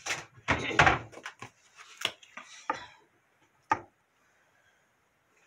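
Kitchen handling sounds: knocks and clatter of a spoon, bowl and bottle handled on a wooden cutting board, busy in the first second, then a few separate sharp clicks, the last a little past the middle.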